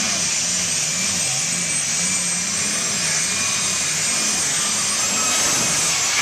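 Diesel pulling tractor running flat out under load while dragging a weight sled: a loud, steady engine with a high whine over it. The whine falls in pitch near the end.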